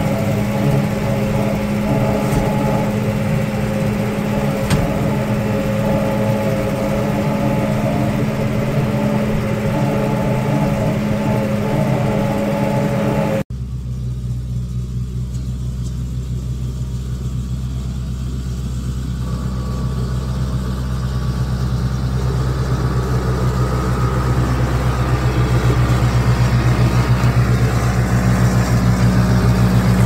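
Tractor engine running steadily under way, heard from inside the cab. After a cut about 13 seconds in, the same tractor is heard from outside, its lower engine note growing louder as it drives up and passes close by.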